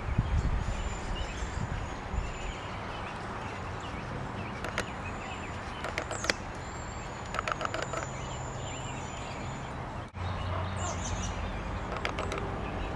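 Outdoor ambience: a steady low rumble with a few brief, high chirps and clicks scattered through it, breaking off abruptly at a cut partway through.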